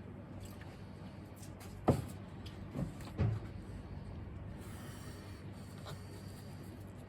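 Three soft knocks about two, nearly three and a little over three seconds in, the first the loudest, over a steady low hum.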